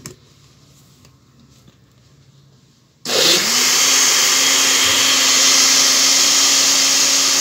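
A click, then about three seconds in a countertop blender switches on, its motor spinning up quickly and then running loud and steady as it purees garlic cloves with salt and water into a marinade.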